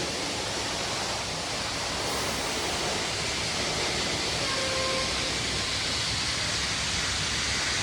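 Loud, steady hissing rush of sandblasting on the old elevated L structure, with a brief faint tone about halfway through.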